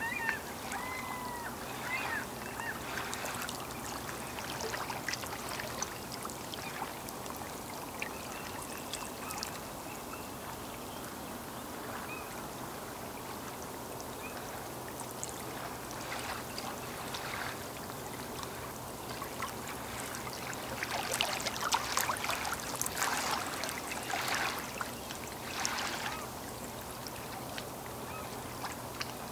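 Small waves lapping and splashing at the lake's edge, loudest in a run of splashes about two-thirds of the way through. Waterfowl call in a quick series of honks right at the start.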